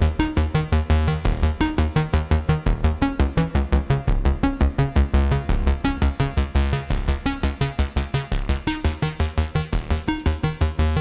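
Radikal Technologies Delta CEP A synthesizer playing a sequenced FM bass line with chords. The notes repeat quickly and evenly, about five a second, and the tone brightens now and then.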